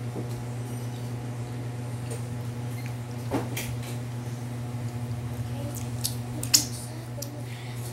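Eating sounds: fried street food being picked off a plastic tray and chewed, heard as a few sharp clicks and taps over a steady low hum. The loudest click comes about six and a half seconds in.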